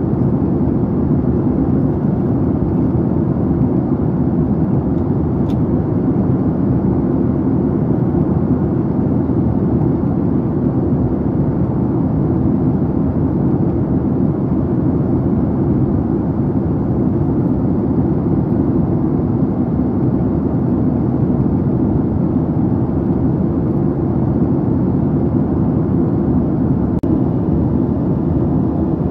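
Steady cabin noise of a Boeing 767-300ER in flight, heard inside the cabin: a constant low rush of airflow and jet engines with no change in pitch.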